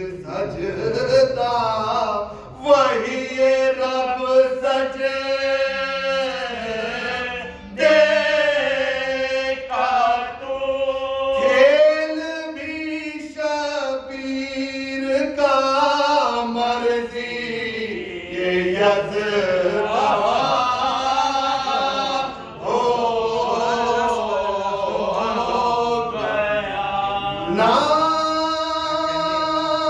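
Unaccompanied Shia devotional chanting by men: a lead male voice sings long, wavering held notes into a microphone, and the two men beside him join in. The phrases break off briefly every few seconds before the next line begins.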